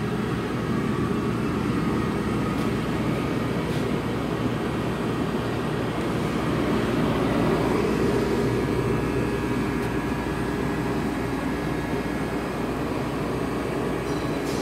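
Steady hum and rush of air from a running machine cooling unit, such as the grinder's electrical-cabinet air conditioner and fans. It holds even, with no starts or stops.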